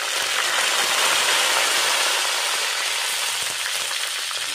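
Fresh curry leaves sizzling in hot oil with mustard seeds in a kadhai: a loud, steady hiss that swells over the first second and eases slightly toward the end.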